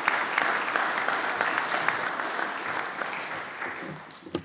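Audience applauding, the clapping thinning out over the last second or so, with a single thump near the end.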